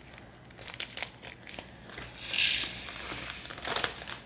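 Small plastic bags of resin diamond painting drills being handled: light clicks and a crinkling rustle, loudest about two seconds in for about a second.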